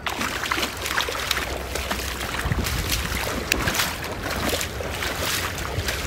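Hooked smallmouth bass splashing and thrashing at the water's surface as it is drawn to shore, a run of irregular splashes, with wind rumbling on the microphone.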